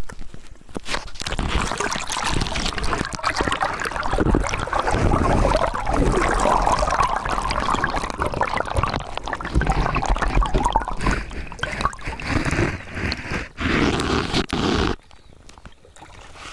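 Water gurgling and splashing right at the microphone, held at the surface beside a moving kayak's hull, with a heavy low rumble. It cuts off suddenly about a second before the end.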